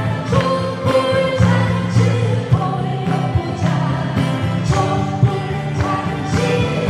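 A woman singing a Korean song over instrumental accompaniment, holding long notes that move through a melody.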